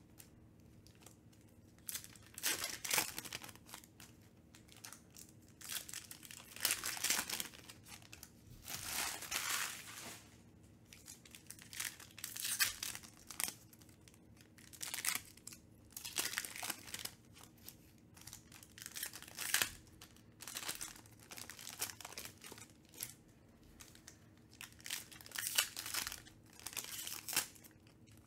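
Foil wrappers of Panini Prizm UFC trading-card packs crinkling and tearing as the packs are ripped open one after another, in short bursts every second or two with brief quiet gaps between.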